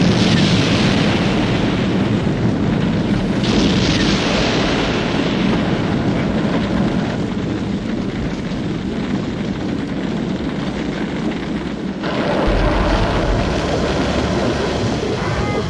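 Continuous rumbling roar from a vintage sound-effects library track. It changes abruptly about three and a half seconds in, and again about twelve seconds in, where a deeper rumble takes over.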